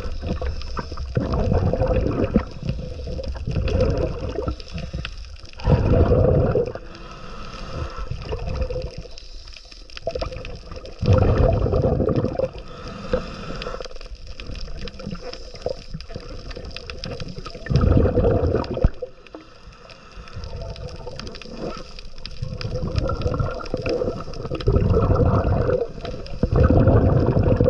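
Scuba diver breathing underwater through a regulator: a gurgling rush of exhaled bubbles about every six seconds, with quieter stretches between breaths.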